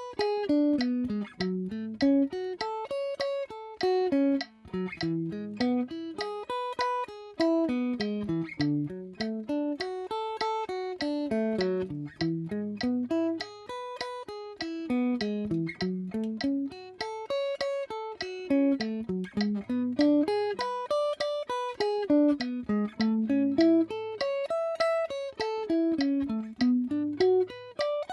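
Gibson Les Paul electric guitar playing triad arpeggios in the key of A, one picked note at a time. The notes climb and fall in repeated up-and-down runs.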